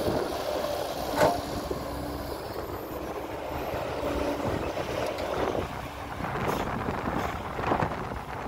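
Diesel engine of heavy earthmoving machinery running steadily, with a sharp knock about a second in and a louder one near the end.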